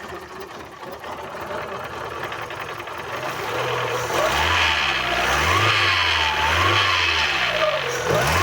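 Fiat Uno engine running, steady and quieter at first. From about three seconds in it is revved up and down repeatedly, about once a second. The owner diagnoses the engine as having a knocking piston pin.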